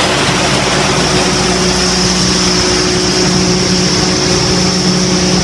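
Portable screening plant running: a loud, steady machine drone with a steady high whine over it.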